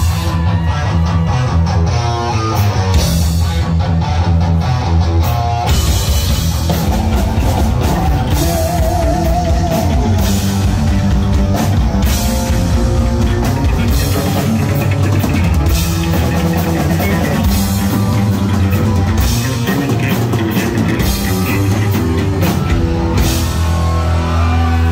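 Heavy metal band playing live and loud: distorted electric guitars, bass and drum kit, with a held wavering note about nine seconds in.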